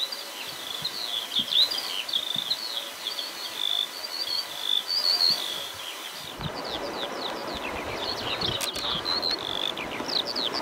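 Dawn chorus of small birds: many quick high chirps and short falling notes overlapping without a break. About six seconds in, a low rushing noise rises underneath the birdsong.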